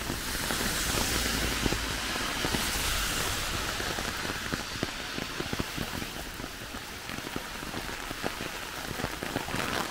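Steady rain falling, with a dense patter of small drop ticks over a continuous hiss.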